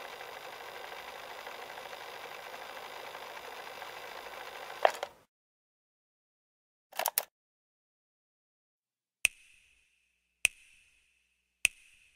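Instant camera sound effect: a small motor whirs steadily for about five seconds, like a print being ejected, and stops with a sharp click. After a pause comes a double click, then a run of sharp clicks with a short high ring, about one every second.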